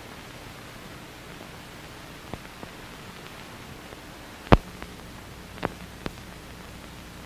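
Steady hiss of an old 1940s film soundtrack with no narration, with a faint hum under it. A few scattered clicks and pops come through, the loudest about four and a half seconds in.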